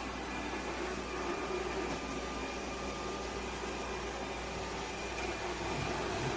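A steady machine whir with a low hum and a few faint steady tones, holding level throughout.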